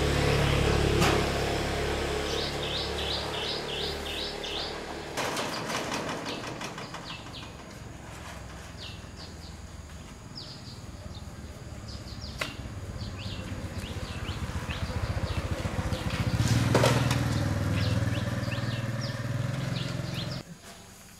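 Small birds chirping in quick repeated short notes over a low motor-like rumble. The rumble fades over the first several seconds and swells again near the end before cutting off suddenly. A few sharp knocks stand out.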